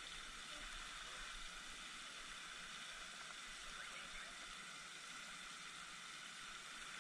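Steady, faint outdoor background hiss with no distinct event.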